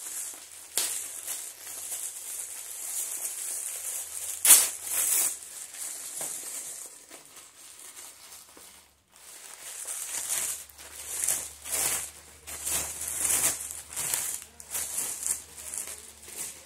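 Hands opening and unwrapping a yarn package, its packaging crinkling and rustling in bursts. There is one sharp crackle about four and a half seconds in, and busier rustling over the last several seconds.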